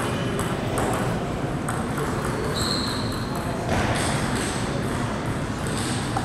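Table tennis hall ambience: background voices and scattered light clicks of celluloid table tennis balls, with a brief high-pitched squeak a little before the middle.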